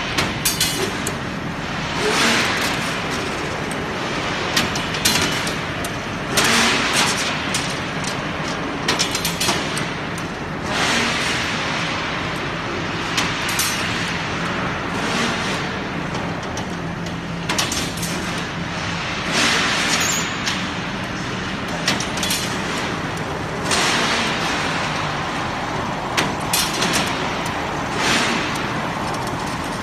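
Automatic CNC rebar stirrup bending machine running its working cycle on steel wire: a burst of whooshing noise with clicks and clanks repeats about every two seconds over a steady machine hum.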